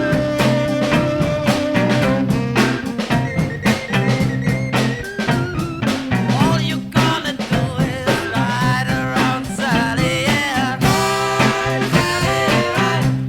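A 1960s beat band playing an instrumental passage, with saxophone, organ, electric guitar, bass guitar and drum kit, recorded without reverb.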